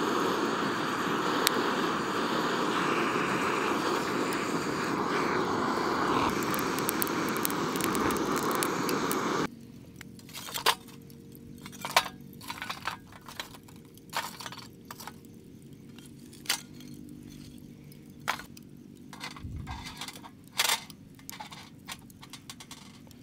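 A gas canister torch blows its flame onto charcoal with a loud, steady hiss that cuts off suddenly about nine seconds in. Then come scattered metal clinks and light knocks as the coals are moved with a metal tool and a wire grill grate is set on the small steel grill.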